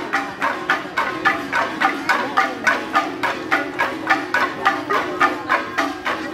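Traditional percussion music: struck gongs ringing in a steady, even beat of about three strikes a second.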